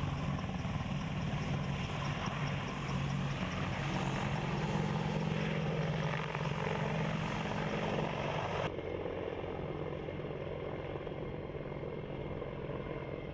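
AH-64 Apache twin-turboshaft attack helicopter flying past low, a steady drone of rotor and engine with a faint regular ticking above it. About nine seconds in, the sound changes abruptly and goes on duller, without its hiss.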